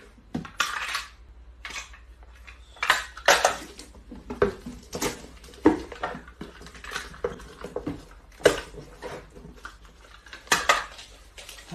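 Packing tape pulled off a handheld tape dispenser and torn on its teeth, with cardboard boxes handled and knocked, in irregular short rasping bursts.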